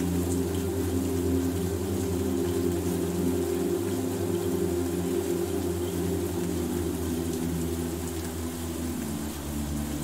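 Soft ambient music of low, sustained chords, shifting to a new chord near the end, over a faint patter of rain.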